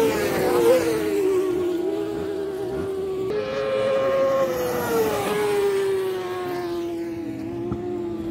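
Racing motorcycle engine running at high revs as the bike speeds away down the straight, its note sliding down in pitch, jumping back up a little after three seconds in, then falling again.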